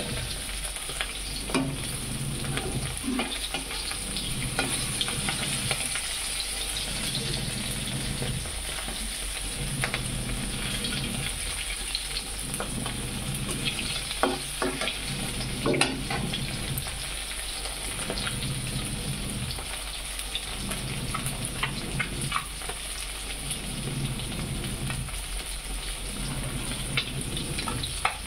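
Fish pieces sizzling and spattering as they shallow-fry in hot mustard oil in an iron kadhai, with scattered pops. Now and then a metal spatula scrapes and taps against the pan as the pieces are turned.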